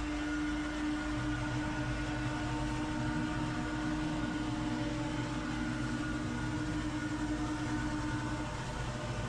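Small engine of lawn equipment running steadily at a constant speed, a continuous drone with a steady hum.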